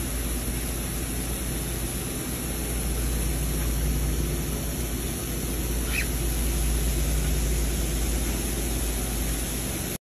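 Shower water running in a steady hiss, with a brief faint high note about six seconds in.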